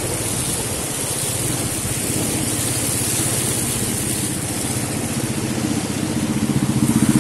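Motorcycle engine running at low speed as it rides through floodwater, over a steady hiss of water spray. The engine grows louder near the end.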